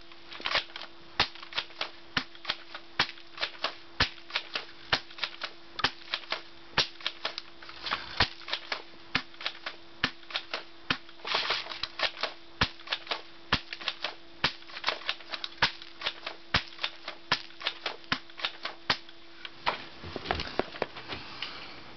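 Airsoft gun fired again and again at a plastic DVD case, sharp cracks of shots and pellet hits coming about two to three a second, with clusters of clattering plastic now and then. A steady faint hum runs underneath and stops near the end.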